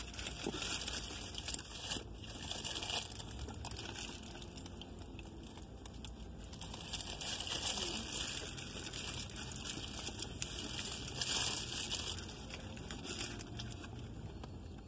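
Food packaging crinkling and rustling in irregular bursts, over a faint low steady hum.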